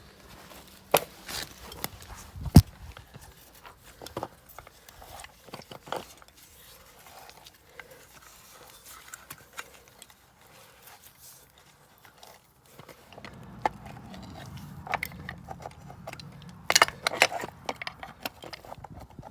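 Irregular knocks, clicks and clatter of hand work on a well pump and its pipe, with a low rumble under them from about two-thirds of the way through.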